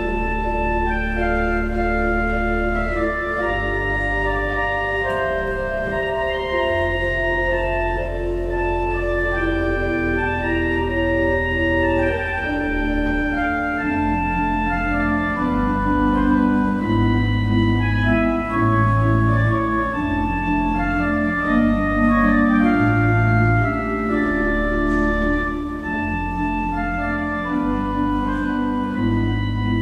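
Church organ playing held chords in several voices over a deep, slowly moving pedal bass line.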